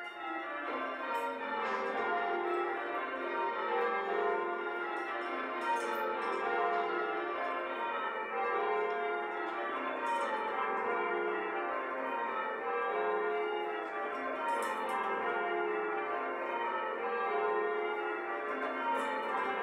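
A ring of church bells rung in changes: a continuous run of bell strikes in repeating rows that step down in pitch from treble to tenor.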